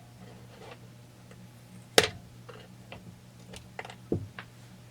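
A ground-down screwdriver used as a seal puller prying at a crankshaft seal in a chainsaw crankcase. One sharp click comes about two seconds in, then a string of lighter ticks and a duller knock near the end, as the old seal is worked loose.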